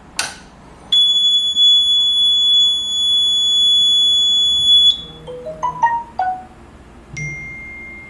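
A fire alarm pull station snaps as it is pulled, then a Notifier fire alarm panel's sounder gives a steady high tone for about four seconds and cuts off suddenly when the alarm is acknowledged at the panel. Short marimba-like notification chimes from smartphones receiving the alarm text alerts follow, and a lower steady tone starts near the end.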